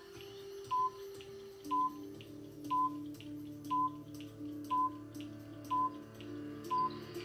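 Countdown timer beeping, one short electronic beep each second, seven in all, ticking off the final seconds. The beeps come through a television's speakers over low held tones that shift pitch partway through.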